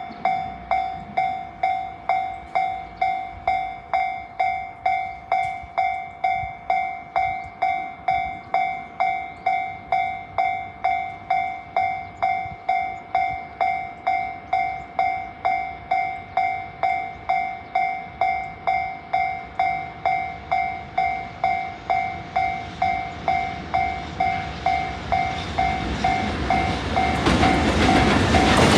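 Japanese level-crossing warning bell ringing in an even, repeating ding, about three rings every two seconds. In the last few seconds the rumble of an approaching freight train grows louder beneath it.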